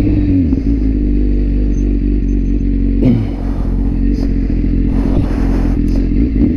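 BMW S1000RR's inline-four engine dropping in revs, then running steadily at low revs as the bike slows, with a couple of brief clicks about four and six seconds in.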